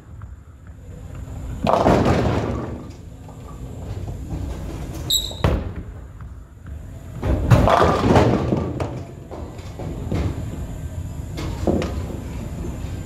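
A bowling ball crashing into string-tethered pins, twice: once about two seconds in and again, louder, about seven and a half seconds in, each crash trailing off in a clatter of pins. A low rumble of balls rolling on the lanes continues throughout.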